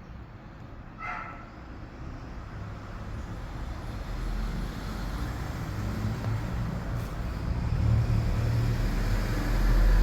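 A motor vehicle's engine rumbling, growing steadily louder as it comes closer, with a brief higher-pitched sound about a second in.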